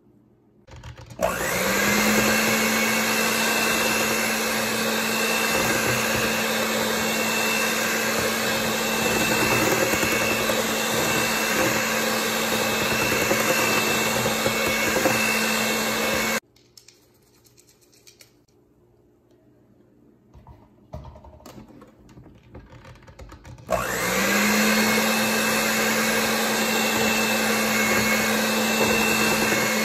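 Electric hand mixer with wire beaters switched on about a second in, whining up to speed and running steadily through cake batter in a glass bowl. It cuts off suddenly after about fifteen seconds. After a pause with a few faint knocks, it starts and speeds up again near the end.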